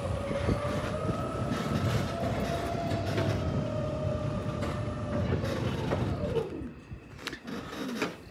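Electric hotel buggy (golf cart) running: a steady motor whine over tyre rumble on paving. About six seconds in the whine falls in pitch and the sound eases off as the cart slows.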